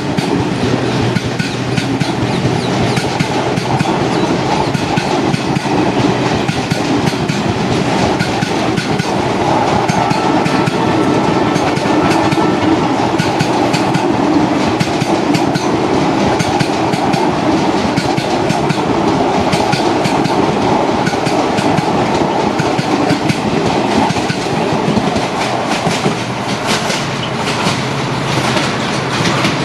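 Express train, hauled by an EMD WDP4 diesel locomotive, passing at speed: a steady loud rumble with wheels clattering over the rail joints throughout.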